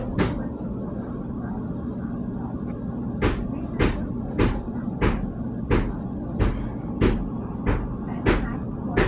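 Sharp knocks of bathroom tiles being chipped off the wall, starting about three seconds in and then coming steadily, roughly every two-thirds of a second, about ten in all, over a steady low hum.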